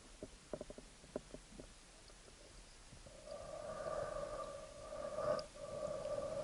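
Light clicks and knocks picked up through an action camera's waterproof housing underwater, then from about three seconds a steady hollow hum that breaks off briefly and resumes.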